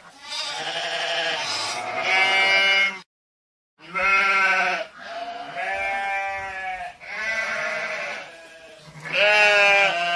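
A flock of sheep bleating: loud, wavering calls about a second or two long, one after another and often overlapping. The sound cuts out completely for under a second about three seconds in.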